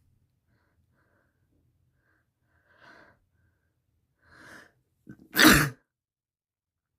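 Two faint breaths, then one loud, short sneeze about five and a half seconds in.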